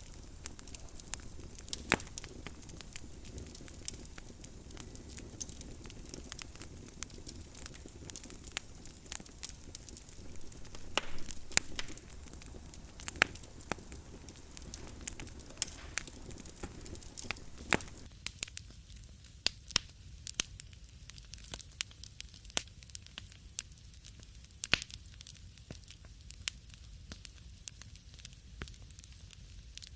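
Wood fire crackling in a fireplace: irregular sharp pops and snaps over a low hiss. A little past halfway the background hiss drops while the crackles go on.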